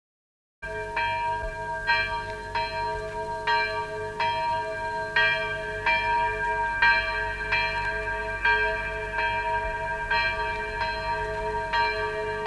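Bells ringing, struck over and over a little faster than once a second in an uneven series, over a steady held ringing tone; they start about half a second in.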